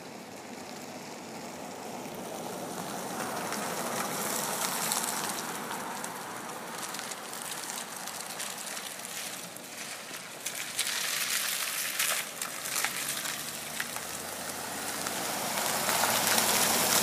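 Cars passing on a rain-wet street: tyre hiss swells and fades, loudest about five seconds in and again near the end, with a few sharp clicks around the middle.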